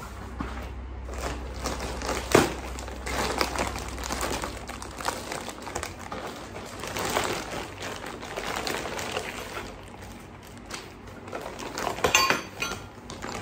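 Clear plastic packaging crinkling and rustling as it is handled and chair parts are pulled out of it, with paper rustling as well. It gets louder about two seconds in and again near the end.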